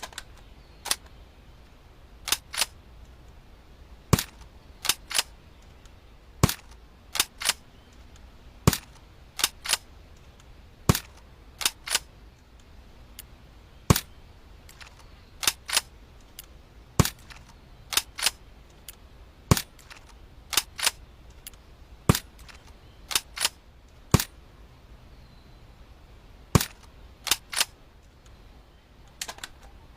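Airsoft Arctic Warfare-style sniper rifle making sharp, dry clicks and snaps, often in close pairs or threes, one group every second or two.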